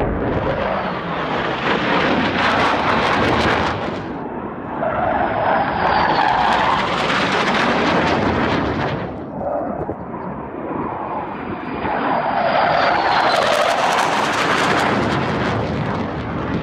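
Military fighter jets roaring as they fly low overhead, the jet noise swelling and easing three times as they pass, with a thin whine that falls slightly in pitch.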